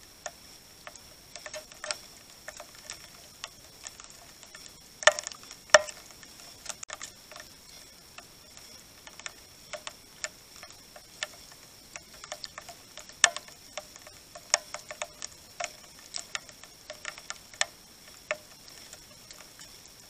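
Great tits pecking and hammering at seeds and corn, making small sharp taps and clicks that come irregularly and in short clusters.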